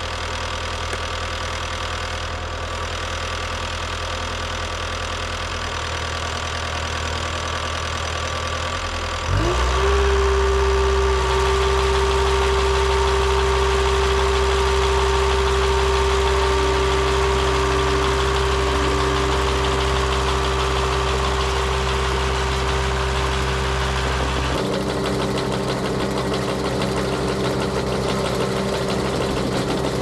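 Diesel engine of a CAT tracked skid steer running at idle, then about a third of the way in it revs up with a rising whine and settles into a louder, steady high-revving run with a constant whine. About two-thirds through the low part of the sound changes as the machine works on.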